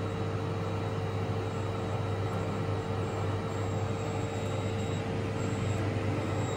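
A steady motor hum with a faint high whine, unchanging throughout.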